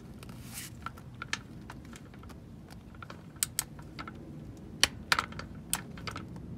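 Torque wrench ratchet clicking on a 15 mm socket while the oil-pan drain bolt is tightened to 18 ft-lb. The clicks come singly and in short runs at uneven intervals, with a denser cluster in the second half.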